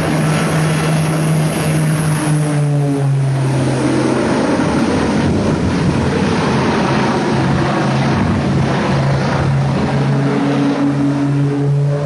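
Propeller aircraft engine droning steadily, its pitch dropping a step about three seconds in and rising again near the end, with rushing wind noise underneath.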